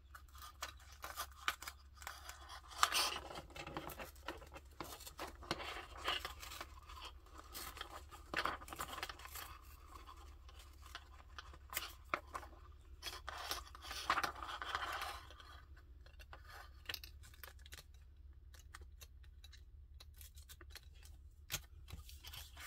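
Map paper being torn by hand, slowly and in short crackly bursts of ripping, with rustling of the paper and the plastic transparency beneath it; the tearing thins out over the last third.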